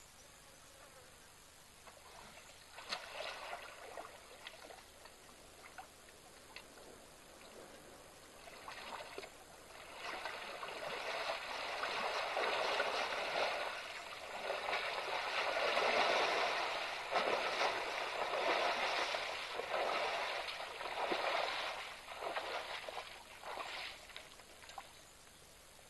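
An African elephant wading through a waterhole, the water sloshing and splashing around its legs: a few short splashes a few seconds in, then steadier, louder sloshing from about ten seconds in that dies away near the end.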